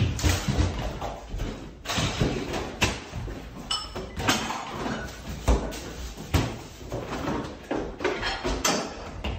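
Kitchen cabinet doors and drawers banging as they are yanked open and knocked about in quick succession, a rapid, irregular series of knocks and bangs.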